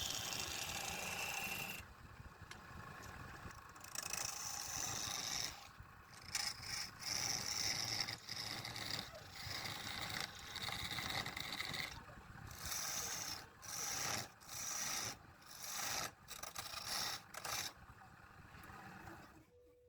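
A tool scraping wood in uneven strokes; past the middle they come as short scrapes about a second apart.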